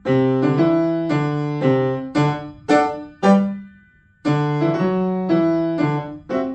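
Petrof grand piano played in a run of separate chords, each struck and left to fade, with a short pause a little past the middle before the chords start again.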